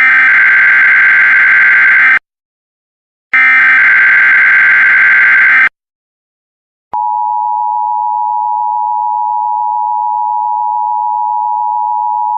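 Emergency Alert System broadcast tones: the last two bursts of the SAME digital header, each about two seconds of rapid warbling data tones, then about seven seconds in the steady two-tone EAS attention signal starts and holds.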